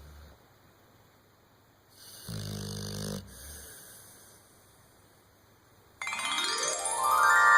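A sleeping pet snoring: one clear, low snore about two seconds in, with fainter breathing around it. About six seconds in, a loud electronic tone starts suddenly, rising in pitch and then holding steady, much louder than the snoring.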